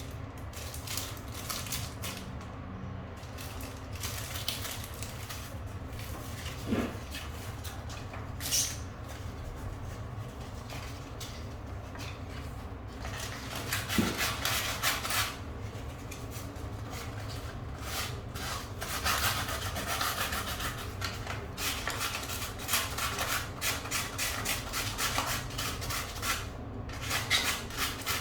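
Hand work on a bicycle tire and inner tube for a puncture repair: short rubbing, scraping strokes in quick runs, busier in the second half, with a couple of light knocks.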